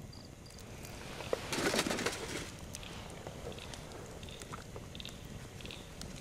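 Soft rustling and scuffing of someone moving on the ground, loudest about a second and a half to two and a half seconds in, with scattered small clicks and a few faint high chirps.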